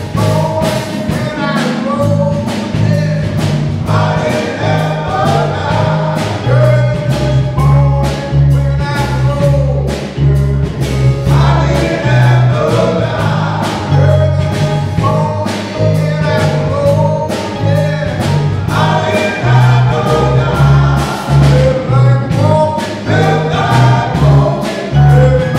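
Male gospel group singing in harmony, backed by a bass guitar line and a steady beat.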